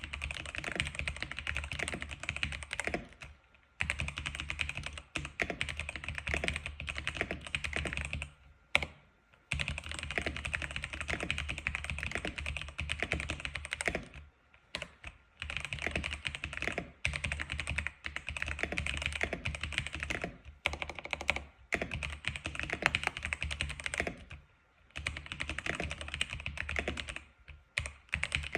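X87 keyboard being typed on: fast, continuous runs of keystroke clicks, broken by a few short pauses.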